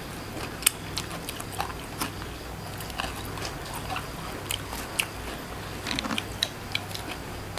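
Close-up eating sounds: chewing and biting, with scattered short crunches and clicks.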